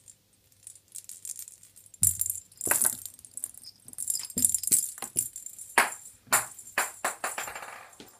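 A cat's toy jingling and rattling as the cat bats and pounces on it on carpeted stairs: a run of sharp taps and jingles, starting about two seconds in and coming in quick clusters.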